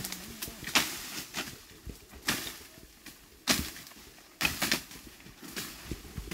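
Irregular sharp chopping strokes of blades cutting through bamboo and tall cane, about one a second, with leaves and stalks rustling as they fall.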